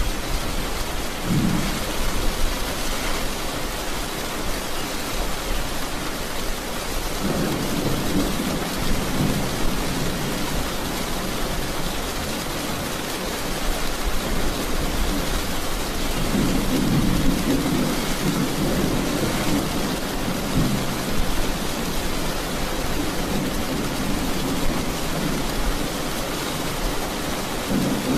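Heavy rain pouring steadily, with thunder rolling low several times: a brief rumble near the start, then longer rolls about a quarter of the way in, past halfway (the longest) and again toward the end.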